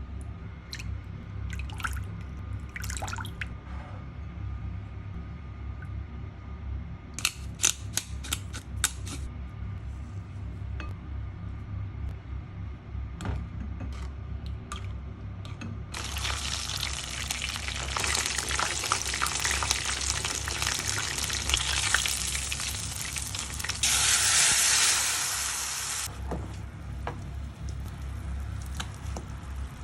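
Kitchen work: a few light clinks, then water running from a tap for about ten seconds. The flow is strongest just before it cuts off suddenly. A steady low hum lies underneath throughout.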